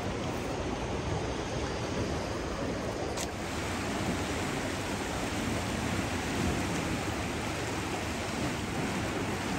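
Steady rushing of a river flowing past, with one brief click about three seconds in.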